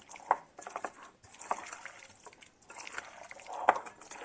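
Wet potato-and-pea pickle (aloo matar achar) being stirred and mixed by hand in a bowl: irregular squelching and slopping, with a few sharper clicks.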